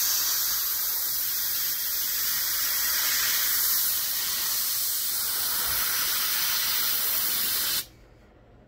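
Gravity-feed airbrush, its needle cap off, hissing steadily as it sprays a fine crack line, then cutting off abruptly near the end as the trigger is let go.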